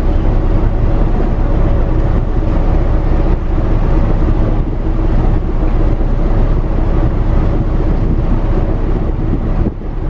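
Cargo ship's engine running with a steady low drone, mixed with wind buffeting the microphone.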